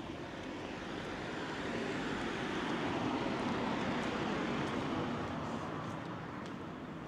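A vehicle passing by on a city street: its noise swells to a peak midway and then fades away.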